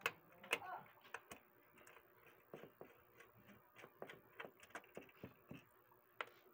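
Irregular light clicks and ticks of a screwdriver turning screws in the sheet-metal cover of a DVR case.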